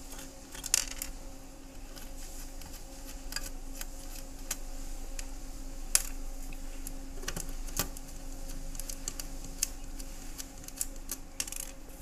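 Scattered small clicks and taps as the mounting screws of a circuit board are undone by hand, the sharpest a little under a second in and about six seconds in, over a steady low electrical hum.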